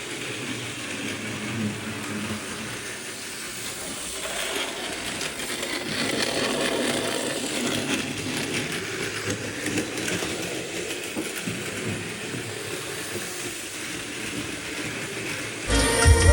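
Steady street traffic noise, a hiss and rumble without clear events, swelling a little partway through and easing again.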